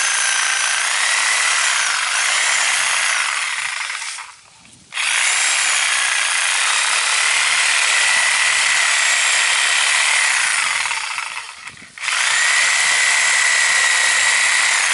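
Reciprocating saw (Sawzall) cutting into the thick root ball of an ornamental grass clump. It runs in three long stretches with short stops about four seconds in and near twelve seconds, and its steady whine shifts a little in pitch.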